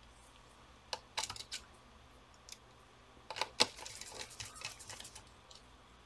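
Scattered small clicks and taps of a laptop's copper heatpipe cooler and a screwdriver being handled and set down onto the motherboard. A few light taps come about a second in, and a sharper cluster around three and a half seconds is followed by softer clatter.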